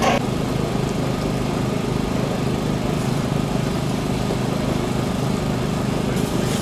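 Small engine running steadily at constant speed. A short rush of noise comes at the very start.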